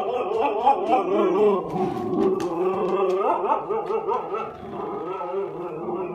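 A husky is giving a long, unbroken run of wavering, howl-like "woo" vocalising, the pitch sliding up and down throughout. It is the excited husky "talking" of a dog worked up at the prospect of a car ride.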